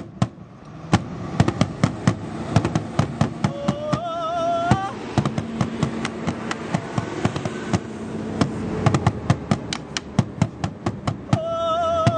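Large wooden drum with a cowhide head beaten fast with two sticks: a dense run of sharp strikes. A wavering held note sounds twice over the drumming, about four seconds in and again near the end.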